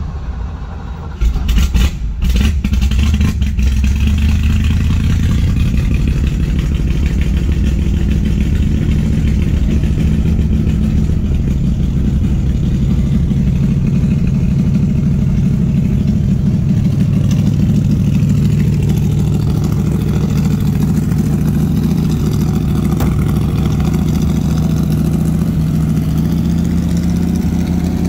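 Ford small-block V8 of a 1965 Shelby GT350 tribute cranking on the starter, catching within the first two seconds, then running at a steady idle.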